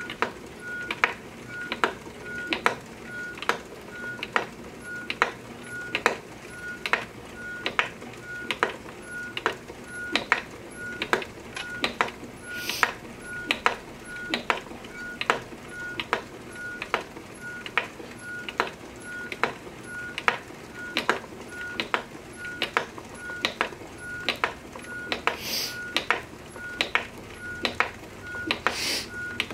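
Wooden flyer spinning wheel being treadled, giving a regular wooden clack about twice a second, with a short high squeak repeating about three times a second behind it. A few brief hisses come through as well.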